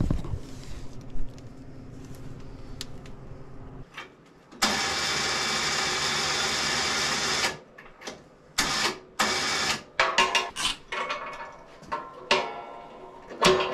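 ATV electric winch motor running in one steady pull of about three seconds, then bumped in several short bursts, raising the freshly mounted snow plow blade with the quad's engine off.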